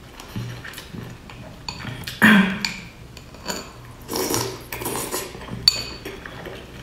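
Close-up eating sounds: biting into and chewing a soft dumpling and slurping from a glass bowl, with chopsticks clicking against the glass. A loud bite or slurp comes about two seconds in, a longer slurp around four seconds, and a sharp clink of the bowl near the end.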